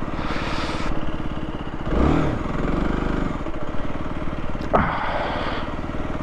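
Aprilia RS 125's single-cylinder four-stroke engine running at low speed, with a short throttle blip about two seconds in that rises and falls in pitch. A sharp click with a quick falling sweep comes near the end.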